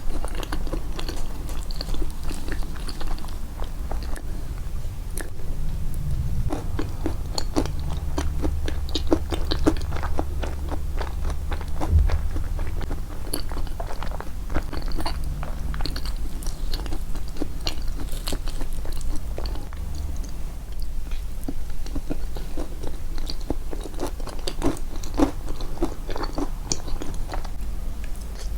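Close-miked, amplified chewing and biting of a walnut and banana yoghurt cake, with wet mouth sounds and irregular crunches, likely from the walnut pieces.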